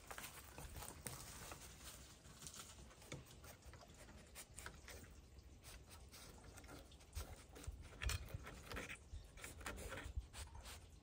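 Faint scratching, clicking and chewing of a coatimundi foraging, its snout and claws working at a crack in a wooden post for hidden food, with a few soft low thumps near the end.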